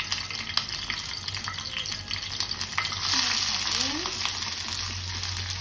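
Green chillies crackling in hot oil in a kadhai, with scattered pops. About three seconds in, sliced onions go into the oil and the sizzling gets louder.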